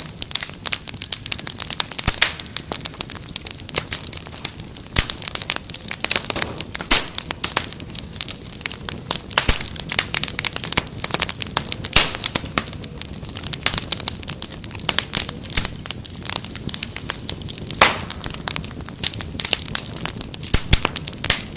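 Wood fire crackling: irregular sharp snaps and pops, a handful of them much louder than the rest, over a steady low rush of burning.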